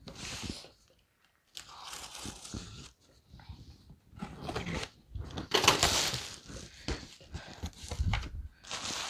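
Packing tape on a large cardboard box being slit with a box cutter in a few scraping strokes, then the cardboard flaps pulled open and plastic wrapping crinkling, loudest around the middle.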